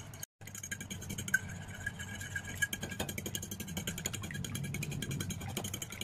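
A metal fork beating a liquid egg mixture in a ceramic plate: quick, even clinks and scrapes of the tines against the plate, many a second. It cuts out for a moment just after the start.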